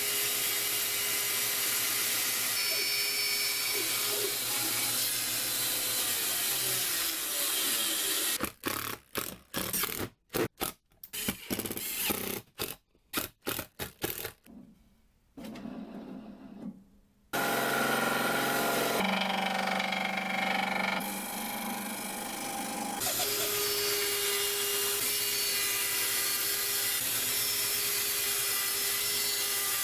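Band saw cutting plywood, interrupted partway through by a drill/driver driving screws in short stop-start bursts and whining briefly, before the band saw cuts again.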